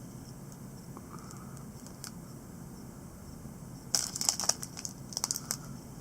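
Low steady hum for about four seconds, then a short spell of crinkling and rustling from a foil trading-card pack wrapper and cards being handled.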